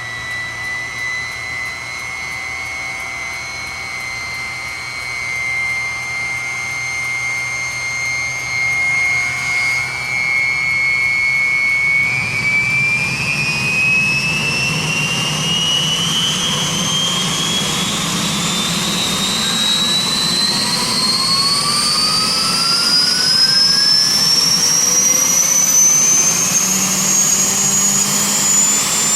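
Bell UH-1 Huey's Lycoming T53 turboshaft engine whining during start-up. The whine holds at a steady pitch for about twelve seconds, then climbs steadily higher as the turbine spools up, with a low rumble growing underneath.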